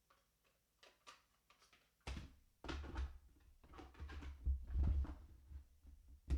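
Knocks and clunks of a Keurig K-Mini coffee maker and its removable drip tray being handled, starting about two seconds in, with dull thumps and a sharp click near the end.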